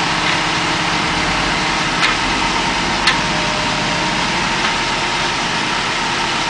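Backhoe loader's diesel engine running steadily, with two short sharp clicks about two and three seconds in.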